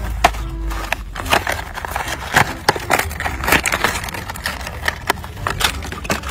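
Clear plastic blister packaging crackling and a cardboard backing card tearing as a die-cast toy truck is pulled out by hand, a dense run of sharp crackles and snaps.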